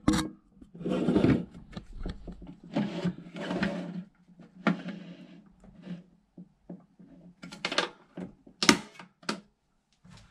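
Plastic toilet siphon being moved up and down on its height adjuster inside a close-coupled cistern: a string of short plastic clicks and scraping rubs, with a few sharper clicks near the end.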